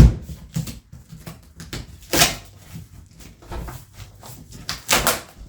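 Cardboard shipping box being cut open with a dull knife and pulled apart: a sharp knock at the start, then scraping and crackling, with two louder tearing rips about two seconds in and near the end.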